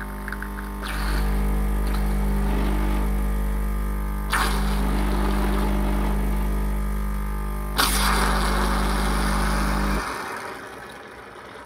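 Saeco Extra capsule coffee machine's pump buzzing steadily while brewing, with three sudden loud hissing, spluttering spurts about a second in, at about four seconds and near eight seconds, as the Lavazza pod bursts and sprays coffee and grounds. The pump cuts off about ten seconds in.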